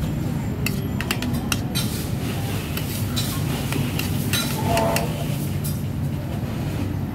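Metal cutlery clinking against a plate and bowls, a quick scatter of sharp clinks in two runs over a steady low background rumble.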